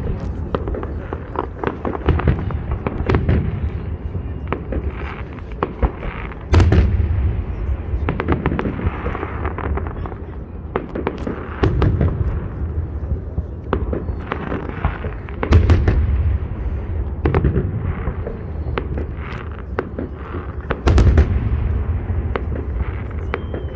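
Festive fireworks salute: heavy booms of shells bursting every few seconds, with rapid crackling and popping between them.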